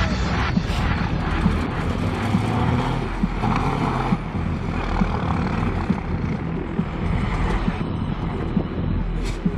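Diesel engines of heavy off-road rally trucks running under load as the trucks drive over rough grassy ground and climb a bank, a steady low rumble with broad noise over it.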